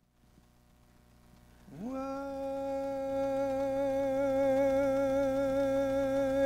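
Near silence, then about two seconds in a single long musical note swoops up into pitch and is held steady with a slight waver, opening a Christmas song.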